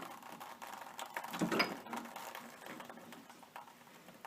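Irregular metal clicking and scraping as the top of a water pressure regulator is unscrewed with plumber's pliers, with a louder cluster of clatter about a second and a half in.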